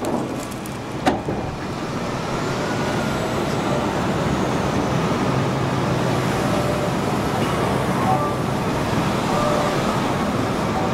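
Log loader working a log deck: a couple of sharp knocks of logs settling in the first second or so, then the machine's engine and hydraulics running steadily.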